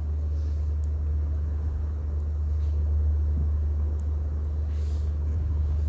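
A steady low hum, with two faint ticks about one and four seconds in.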